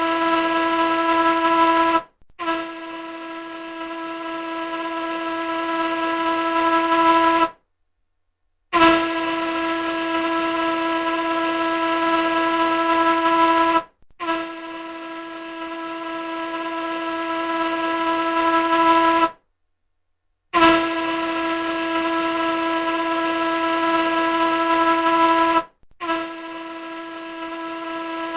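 Large ship's horn sounding a series of long, steady blasts of about five seconds each on one unchanging pitch, cut by short gaps of silence.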